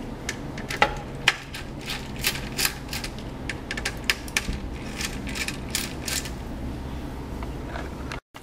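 Small metal clicks and taps of a screwdriver working the screws of a laptop's copper CPU heatsink and of the heatsink being handled on the motherboard: irregular sharp ticks, thickest in the first six seconds, then thinning out.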